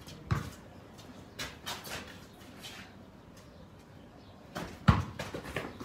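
A basketball bouncing on a paved court: a few separate thuds, the loudest near the end, with lighter knocks in between.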